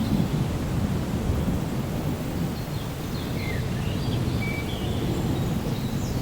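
Thunder rumbling low and continuously during a rainstorm, easing slightly, over a steady hiss of rain, with a few faint, short high chirps now and then.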